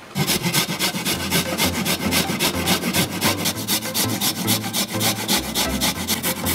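A carrot being finely grated on a flat stainless steel rasp grater, in rapid back-and-forth scraping strokes, several a second, starting abruptly.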